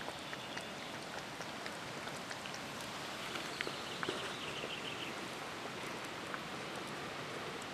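Steady outdoor noise with scattered light crackles and rustles, and a brief faint high twittering about four seconds in.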